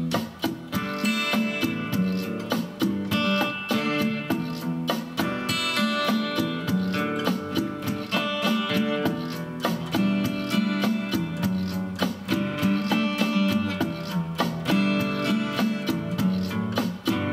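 Guitar strummed in a steady rhythm, playing an instrumental passage of a song without singing.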